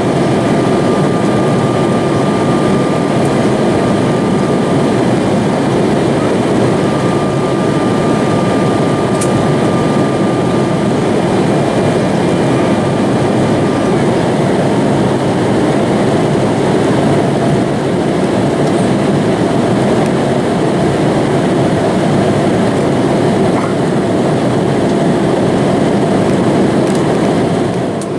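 Cabin noise of an Embraer E-175's General Electric CF34-8E turbofan engines and airflow during the climb after takeoff: a loud, steady rushing noise with thin, steady whining tones, one of which drops out about halfway through.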